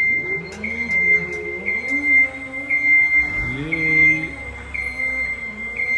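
Scissor lift rising: its hydraulic pump motor whines and shifts in pitch as the platform goes up, over a high beeping motion alarm that pulses about once a second.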